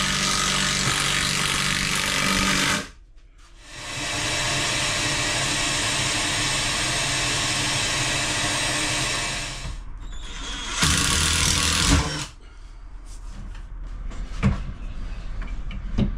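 Cordless impact driver driving 14-gauge screws into metal drawer runners: a run of about three seconds, a brief pause, a longer run of about six seconds, then a short burst about eleven seconds in, followed by light clicks and knocks.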